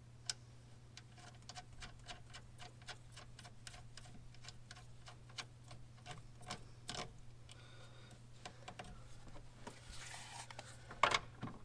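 Small, irregular clicks and ticks of hands handling wires and fitting metal ring terminals onto a circuit breaker's studs, over a steady low hum. A louder knock comes near the end.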